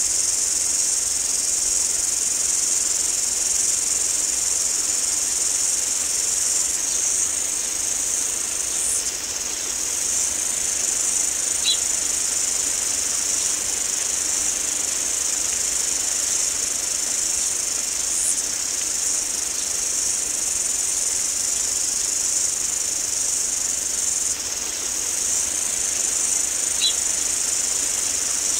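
A steady, high-pitched chorus of insects runs without a break. A couple of faint short chirps sit above it.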